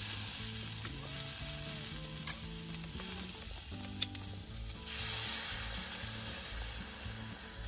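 King oyster mushrooms sizzling steadily in olive oil in a small cast-iron skillet. About five seconds in the sizzle grows louder as canned seasoned squid is poured into the hot pan; a single sharp click comes just before.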